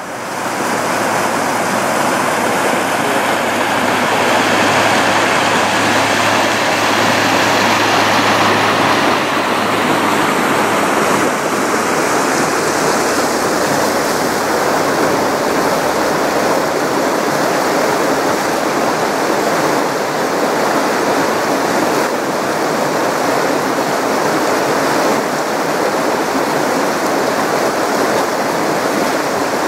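Fast, shallow creek water rushing over a rocky riffle: a loud, steady rush.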